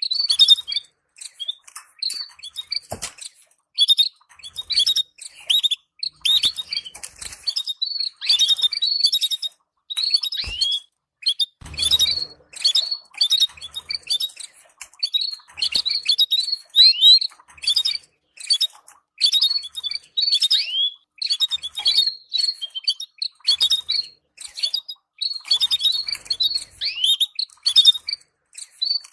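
Canary twittering: quick runs of short chirps and downward-sliding calls, one cluster after another with brief gaps.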